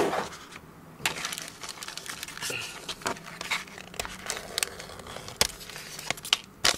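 Clear plastic resealable bag crinkling and rustling in the hands as its top is pulled open, with scattered small clicks.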